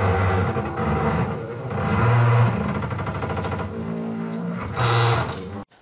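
Electric motor driving the plastic gears of a table saw's blade-tilt mechanism: a mechanical whir whose pitch shifts in steps, with the gears still running unoiled. It cuts off suddenly near the end.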